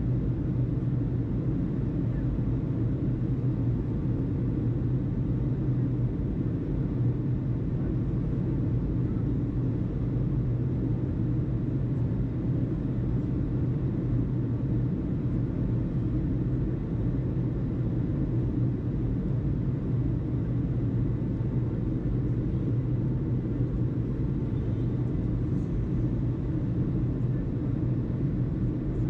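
Steady low rumble with a constant low hum underneath, unchanging throughout and with no distinct events.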